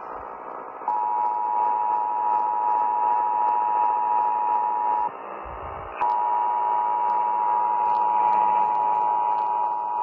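Emergency Alert System two-tone attention signal heard through a portable radio's speaker from an AM broadcast, over radio hiss. The steady high dual tone starts about a second in, breaks off for about a second near the middle, and then resumes.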